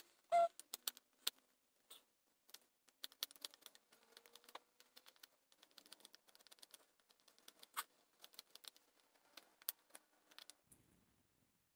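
Knife blade shaving a wooden blank: a quiet run of quick, irregular clicks and scrapes as each cut takes off a sliver of wood, played back sped up.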